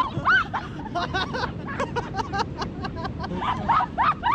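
A group of people laughing and calling out in short excited shouts and squeals, with quick overlapping bursts of laughter.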